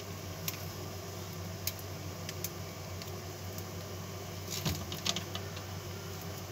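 Enamelled copper magnet wire ticking and scraping against a toroidal transformer's winding as it is threaded through the core and pulled around by hand while rewinding the primary: scattered sharp clicks, with a small cluster about two-thirds of the way through, over a steady low hum.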